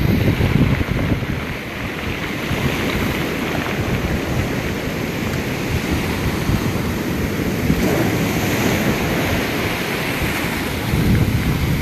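Storm surf breaking and washing in steadily, with gusty wind buffeting the microphone.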